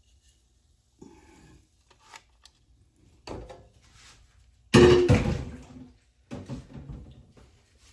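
Kitchen handling noises around an air fryer basket: soft scrapes and knocks as the pork chops and lined basket are handled, with one loud clunk that rings briefly about five seconds in and a few lighter knocks after it.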